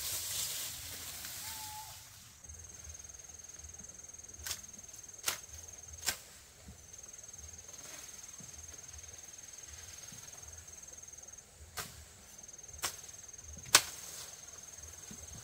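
An insect trilling in a high, thin, steady tone that stops and starts again several times, after a brief rustle. Six sharp clicks or knocks come in two groups of three, the last one the loudest.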